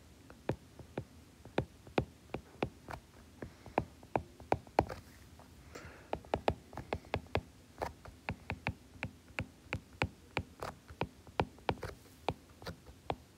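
Stylus tip clicking against a tablet's glass screen during handwriting: quick irregular taps, several a second, with a short lull about midway.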